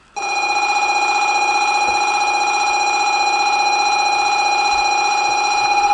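Shinkansen platform electric warning bell starting abruptly and ringing steadily with a fast rattling flutter.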